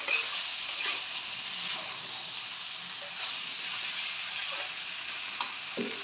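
Chicken pieces sizzling as they fry in masala and ghee in a kadhai while a steel spatula stirs them, with steady frying hiss and a few scrapes and clinks of the spatula on the pan, the sharpest a little past five seconds in.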